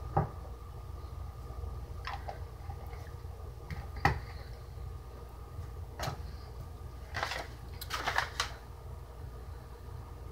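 A handful of short, sharp clicks and knocks a couple of seconds apart, bunched together near the end, over a steady low hum.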